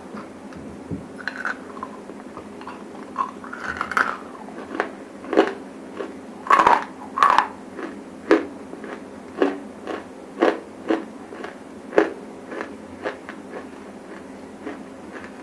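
Dry edible clay being bitten and chewed right at a clip-on microphone: a run of sharp, dry crunches, roughly one or two a second, loudest in the middle and thinning out near the end.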